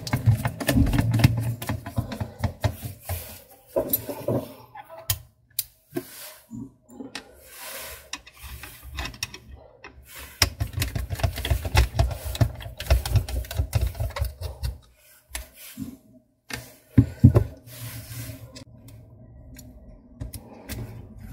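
Screwdriver and gloved hands working on a Canon 337 toner cartridge's plastic drum unit while its cleaning blade is unscrewed and lifted out. Irregular small clicks, taps and scrapes of metal tool and plastic parts.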